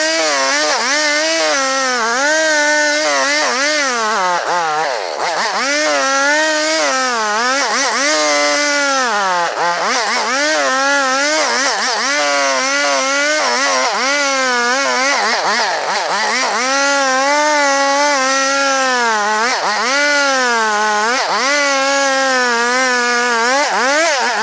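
Old two-stroke chainsaw running at high revs while cutting albasia wood, its pitch wavering as the chain bites and dropping sharply a few times as it bogs under load before picking back up.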